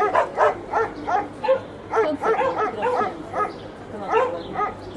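A kitten mewing over and over in short, high, plaintive calls, about three a second.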